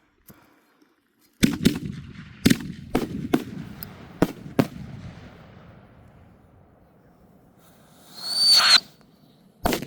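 Whistling firecrackers going off. A quick string of about eight sharp bangs comes over roughly three seconds, each echoing. A few seconds later a short, high whistle sounds, and one more bang follows near the end.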